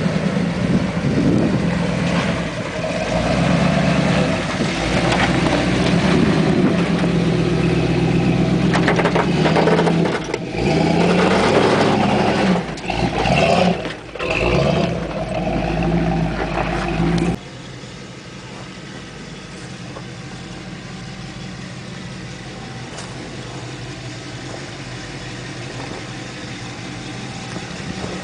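Carbureted AMC 401 V8 of a 1974 Jeep Cherokee running close by, loud, with the throttle rising and falling and several brief dips. About two-thirds of the way through it cuts to the same engine heard quieter and steadier as it crawls up a slope.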